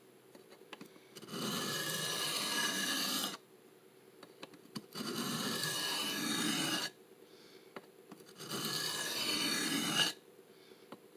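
Steel knife blade being stroked across a coarse 325-grit DMT diamond sharpening plate, a gritty rasping scrape, in three stretches of about two seconds each with short pauses between. The edge is being reground on the coarse plate to repair the bevel.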